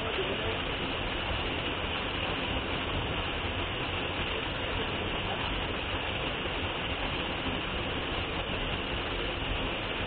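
Waterfall pouring onto rock and into a pool close by: a steady, unbroken rush of falling water.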